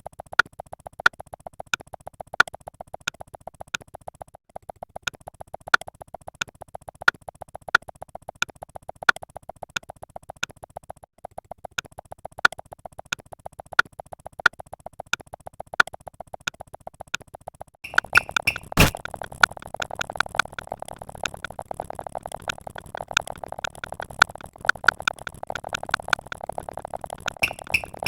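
Synthesized electronic blips repeating in a fast, even pulse, with a louder stroke about twice a second. About eighteen seconds in the sound turns fuller and noisier, with one sharp crack.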